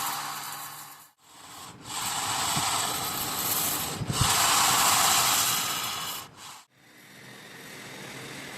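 Hissing, rubbing noise from wire-working machinery. It breaks off abruptly about a second in, returns, and breaks off again after about six seconds before coming back quieter.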